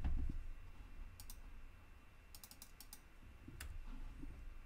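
Scattered computer keyboard key presses and mouse clicks: a click at the start, a pair about a second in, a quick run of clicks midway and one more near the end.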